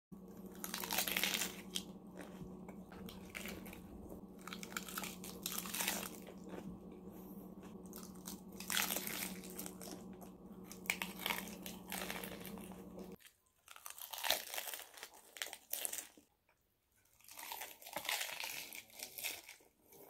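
Eating crisp iceberg lettuce wraps: leaves crinkling as they are folded, bites crunching and wet chewing in irregular bursts.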